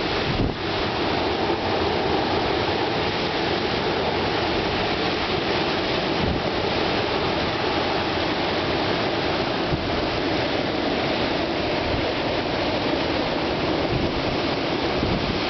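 Storm-force wind rushing steadily and buffeting the microphone.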